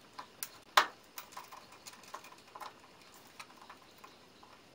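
Scattered light clicks and taps of hands and a small tool working motor wires loose from the terminals inside a machine's metal electrical box, with one sharper click about a second in.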